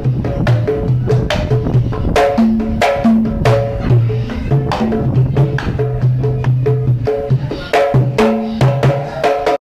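Javanese kendhang drums, a large barrel drum and smaller drums, played by hand in a fast, busy pattern: deep pitched strokes mixed with sharp slaps and ticks, several strokes a second. The playing cuts off abruptly just before the end.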